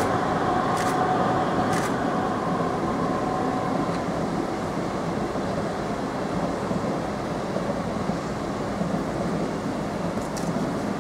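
An Orient Express passenger train hauled by two Trenitalia electric locomotives passing, with a steady rolling rumble of wheels on rail. A whine from the locomotives fades out over the first few seconds as the long line of coaches rolls by.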